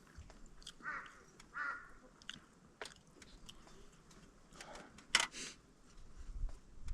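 Someone chewing and biting food close to the microphone, with scattered small clicks and taps and a louder cluster of clicks about five seconds in.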